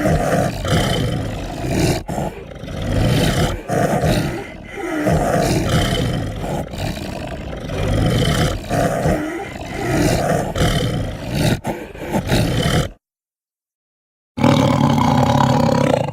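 Yangchuanosaurus roar sound effect: a long run of deep, rasping dinosaur roars and growls, then a sudden silent gap and one more roar near the end.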